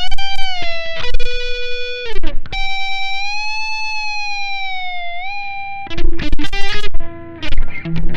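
Electric guitar played through a Blackstar ID:Core V3 amplifier and recorded from its USB output, with an effects-laden lead tone. Sustained, bent notes with vibrato include one long held note in the middle, then quick picked notes near the end. The uploader considers the USB recording to sound bad.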